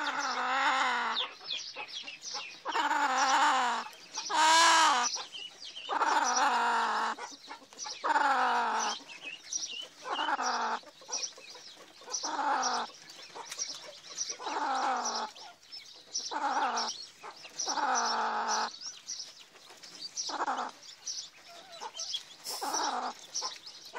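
Chickens calling: a loud call repeated about a dozen times, roughly one every one to two seconds, each falling in pitch at its end, with faint high chirps in between.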